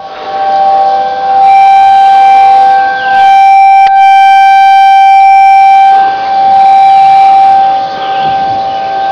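Outdoor tornado warning siren sounding a steady, single-pitch alert tone, loud and overloaded in the recording. Its loudness swells and fades every couple of seconds. A brief click about four seconds in.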